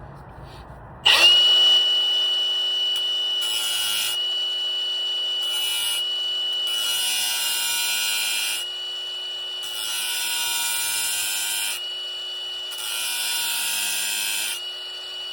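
Power tool motor starting about a second in and running at a steady high whine while sharpening a blunt hole saw, with repeated spells of rougher grinding as the teeth are worked.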